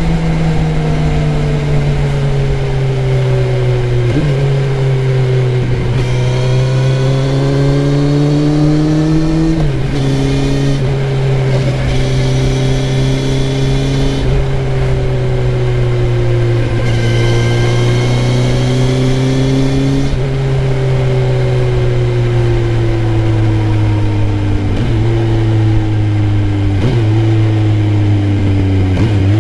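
Kawasaki Z900 motorcycle's inline-four engine and exhaust running loudly. The engine note glides slowly up and down, with several sudden jumps in pitch.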